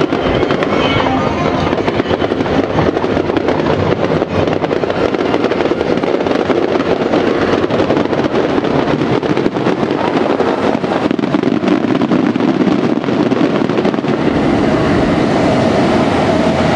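Fireworks bursting with sharp bangs and crackle over a continuous rumble. Near the end an electric commuter train on the Chuo–Sobu line runs past close by: its rumble grows and a steady whine comes in.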